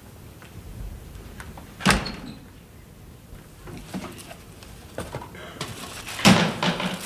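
A door shutting with a sharp knock about two seconds in, then a louder clattering burst near the end.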